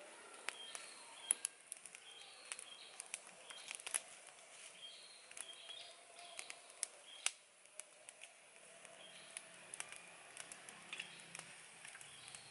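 Small fire of dry twigs crackling, with sharp irregular pops and snaps, while birds chirp in short high notes in the background.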